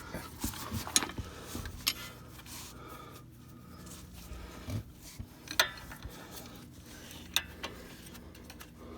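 Hand tools being handled, a 15 mm socket and half-inch drive ratchet: scattered single metal clicks and knocks a second or two apart, with a faint steady hum underneath.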